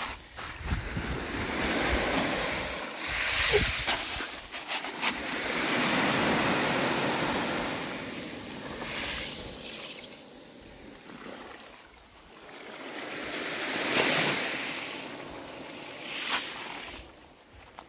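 Small waves washing up a pebbly beach and drawing back, the surf swelling and fading several times. A few sharp clicks come in the first few seconds.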